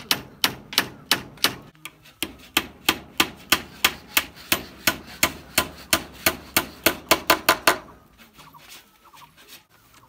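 Hammer nailing split-bamboo slats to a wooden post: steady strikes about four a second, quickening briefly before they stop about eight seconds in.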